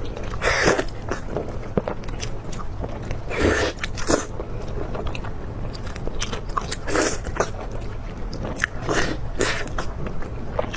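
Close-miked mouth sounds of someone eating: irregular biting and chewing with crunches and clicks, several louder bites spread through.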